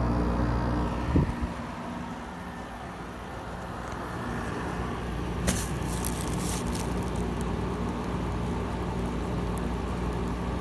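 Frigidaire 5,000 BTU window air conditioner running in cooling mode, its compressor and fan humming steadily. A thump comes about a second in, after which the hum dips and slowly builds back. A few light clicks come midway.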